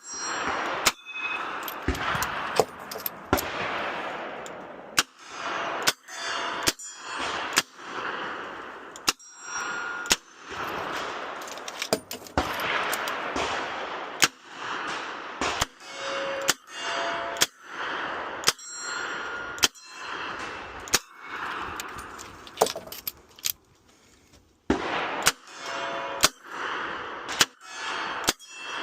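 Smith & Wesson 627 revolver firing shot after shot through a match stage, each shot followed by steel targets ringing and clanging when hit. There is a short lull a little over three-quarters of the way through before the shooting resumes.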